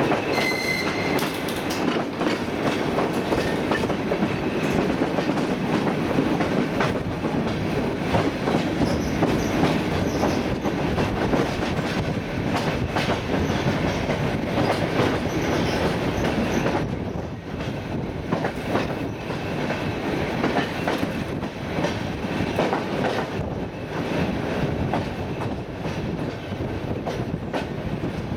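ER9T electric multiple unit running at speed: a steady rumble of wheels on the rails with clickety-clack over the rail joints. A brief high tone sounds about half a second in, and the noise drops a little about two-thirds of the way through.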